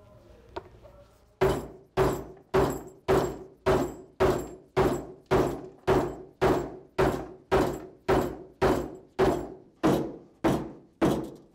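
Hammer blows peening over the broken-off bolt ends of a bolt solid plate conveyor belt fastener splice, mushrooming them so the nuts cannot back off. A steady run of about twenty strikes, about two a second, each with a short metallic ring, starting about a second and a half in.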